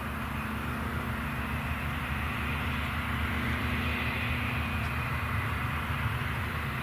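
Airbus A321-231's twin IAE V2500 turbofan jet engines running at low thrust as the airliner taxis and turns onto the runway: a steady whine over a low rumble, growing slightly louder.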